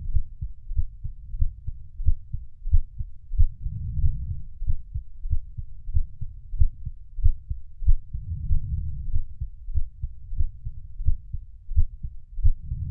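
Heartbeat sound for sleep: low, muffled thumps in a steady, even rhythm, with a soft whooshing swell that comes back every four seconds or so.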